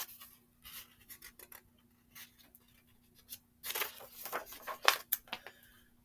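Paper rustling and sliding as a picture book's page is turned and the book handled, in short scratchy bursts that are busiest in the second half.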